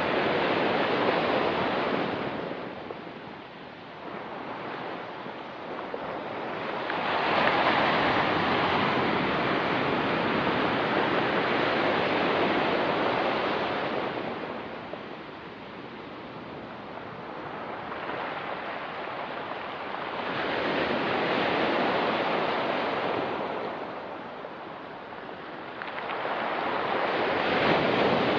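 Ocean surf: waves break and wash up the shore, swelling and ebbing in four long surges with quieter lulls between.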